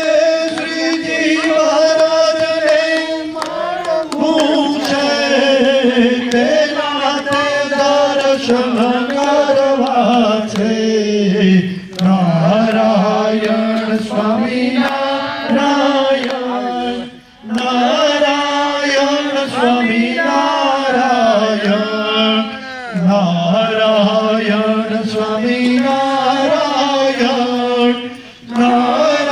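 A voice chanting Hindu ritual mantras in a sustained, melodic recitation, gliding between notes, with a few short breaks.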